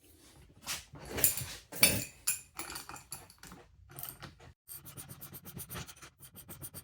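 Socket ratchet cranking a nut down a threaded rod to draw a rubber engine mount buffer into a vintage Vespa engine case. Irregular rubbing, scraping strokes come first, then from about five seconds in a fast, even run of ratchet clicks, around nine a second.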